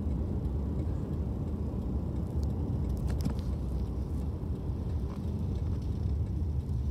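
Steady low rumble of a car driving, heard from inside the cabin: engine and road noise, with a few faint clicks midway.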